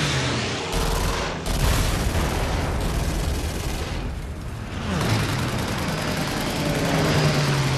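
Film battle sound effects: a dense barrage of gunfire and booms, continuous and loud, as anti-aircraft fire meets a diving fighter plane. The noise thins briefly about four seconds in, then builds again.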